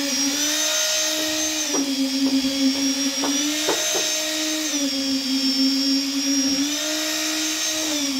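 Electric concrete poker vibrator with a flexible shaft running steadily, compacting freshly poured foundation concrete. Its hum steps down slightly in pitch and back up several times, with a few faint knocks.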